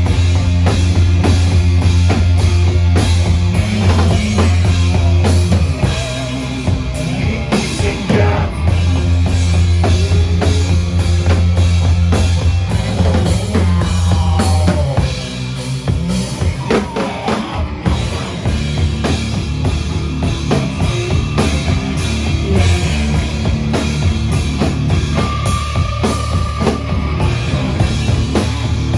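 Rock band playing live: a drum kit with bass and snare drum under bass and guitar. The music dips briefly in level about 15 seconds in.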